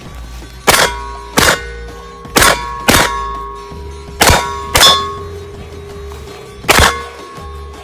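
Steel targets being hit by gunfire: seven sharp metallic clangs at uneven spacing, each leaving a ringing tone that fades slowly.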